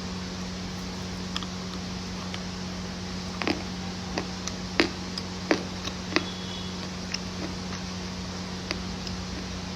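Sharp, short crunches and crackles of crispy food, clustered in the middle, over a steady low hum.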